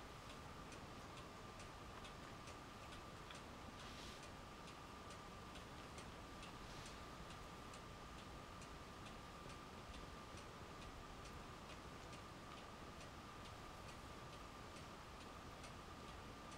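Near-silent room with faint regular ticking, about two ticks a second, over a thin steady high hum. There is a soft brief rustle about four seconds in and another near seven seconds.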